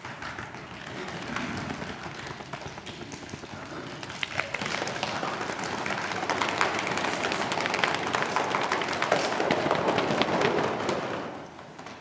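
A group of men making a rapid, dense patter of hand taps and slaps as a body warm-up, building up about four seconds in and dying away near the end.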